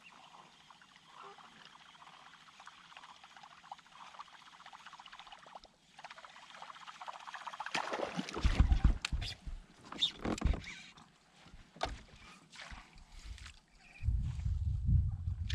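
Faint water noise against a kayak. About eight seconds in, irregular splashing, knocks and heavy thumps of handling close to the microphone begin, with a low rumble near the end.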